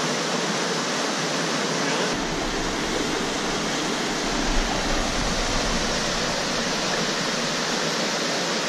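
Small creek cascade pouring over granite boulders into a pool: a steady rush of water. A low rumble sits under it from about two seconds in until about six.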